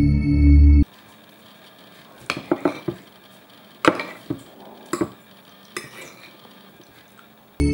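Metal fork clinking and scraping against a ceramic plate while cutting into an omelette over rice: a quick cluster of clicks about two seconds in, then single clinks roughly once a second. Music plays for the first second and comes back at the very end.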